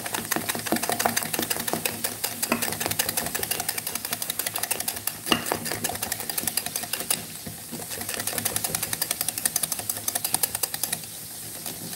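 Wire whisk beating a thick milk, cornstarch and flour batter in a glass measuring cup: rapid, steady strokes of the metal wires clicking against the glass, beating out lumps where the cornstarch has gone hard. The whisking stops about a second before the end.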